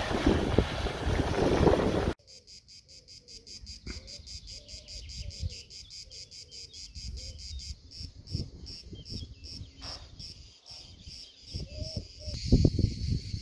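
Wind buffeting the microphone over small waves lapping on a lake shore, cut off abruptly about two seconds in. A steady chorus of cicadas takes over, high-pitched and pulsing rapidly and evenly, about five pulses a second, through the second half.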